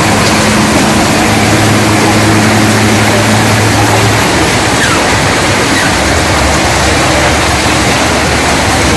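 Loud, steady roar of heavy rain and wind, with an engine's low, steady hum beneath it that stops about four seconds in.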